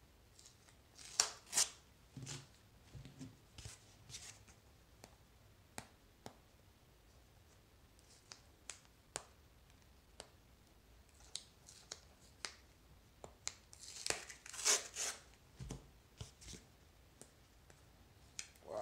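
Masking tape being picked at and peeled off cardboard by hand, with scattered small clicks and crinkles and short tearing rips, a pair of them about a second in and a longer run near the end.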